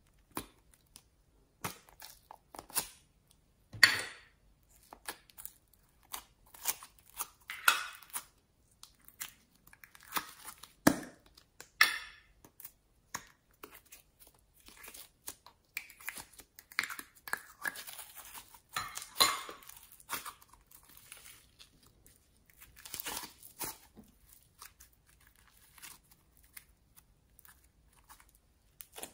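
Slime being squeezed out of a toy tube, stretched and kneaded by hand: irregular sticky crackling and short tearing sounds, with a few sharper pops scattered through.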